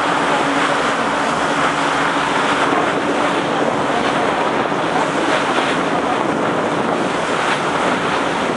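Steady rush of wind buffeting the microphone and water churning past the hull of a moving ferry.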